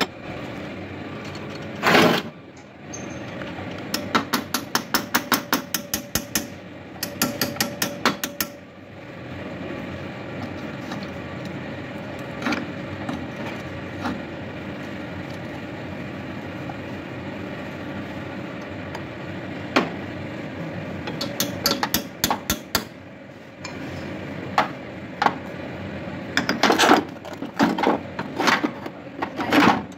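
A hammer strikes the steel frame of a home-built buggy in quick runs of taps, about four or five a second, then in scattered, louder blows near the end. A steady hum runs underneath.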